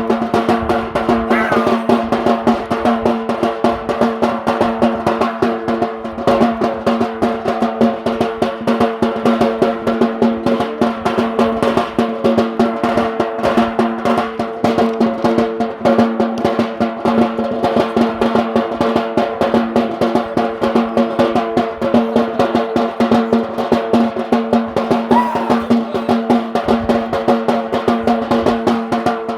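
Fast, dense hand drumming of Yemeni bara' dance music, beaten continuously without a break, over a steady held droning tone.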